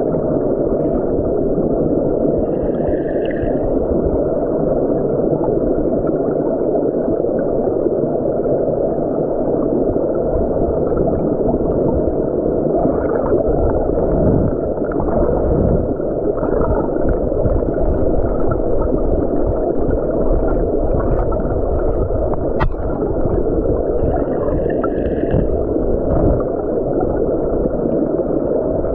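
Muffled, steady rush of stream water heard through an underwater camera, deep and dull with no brightness to it. A single sharp click comes about three-quarters of the way through.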